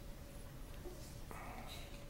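Quiet room ambience with a faint steady hum. A little after a second in, a short hiss starts suddenly and lasts about half a second.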